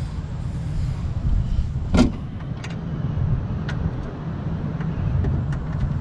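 Steady low rumble under scattered light clicks and one sharp knock about two seconds in: hand work on the window regulator hardware inside a car door.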